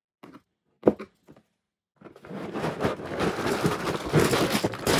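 A few light knocks, then from about two seconds in a continuous tearing and crinkling of Lego set packaging being ripped open.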